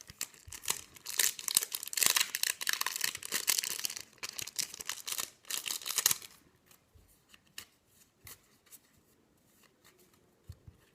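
Foil wrapper of a Yu-Gi-Oh trading card booster pack crinkling and tearing as it is opened, for about six seconds, then a few light handling clicks.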